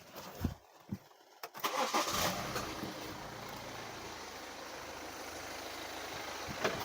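A few clicks, then the BMW X1's engine starts about a second and a half in with a brief loud flare and settles into a steady idle. It runs with the accessory belt removed, and the rattle is gone, leaving only normal engine noise: a sign that the rattle came from the worn belt tensioner pulley.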